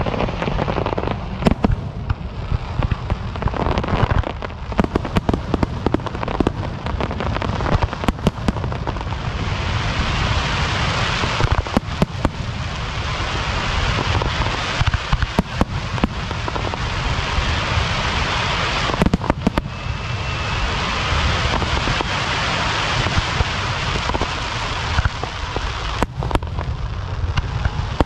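Fireworks going off in rapid succession: many sharp bangs over a constant low rumble, with a long dense stretch of crackling through the middle.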